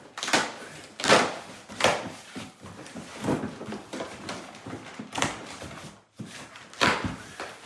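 Packages being handled: a series of short knocks and rustles, about one a second, the loudest about a second in and near the end.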